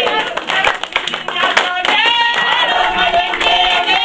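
People singing with rhythmic hand clapping. About two seconds in, the clapping thins out and a voice holds a long wavering sung note.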